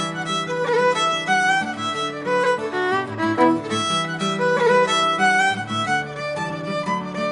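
Fiddle music in the style of an Irish jig or reel, quick running notes over a steady accompaniment.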